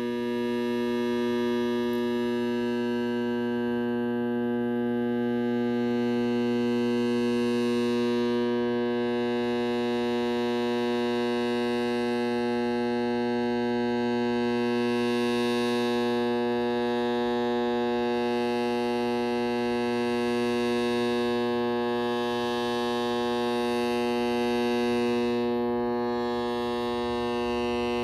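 Furnace blower motor giving a steady electrical hum with a buzz of even overtones, the sign of a failing blower motor.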